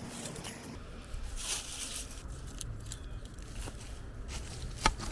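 Digging and scraping through loose soil in a hole, uneven rustling and tearing of dirt, with one sharp click near the end.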